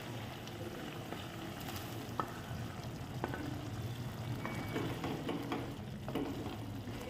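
Wooden spatula stirring fried paneer cubes into simmering spinach gravy in a pan, over a steady soft sizzle, with a few light taps and scrapes of the spatula.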